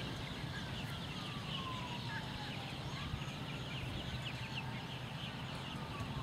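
Outdoor ambience: birds chirping throughout, with a faint slow wail that falls and then rises in pitch, over a low steady hum.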